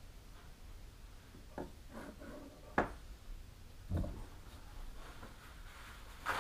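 Scattered handling noises at a wooden workbench as a kitchen knife is set down: a few light knocks, one sharp click and a dull thump.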